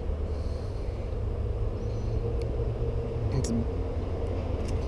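Steady low rumble with a few faint ticks.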